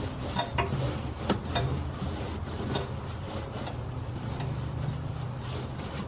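Handling noise from gloved hands working the power steering return hoses at the in-line filter: a few sharp clicks and knocks in the first three seconds, with cloth rustling, over a steady low hum.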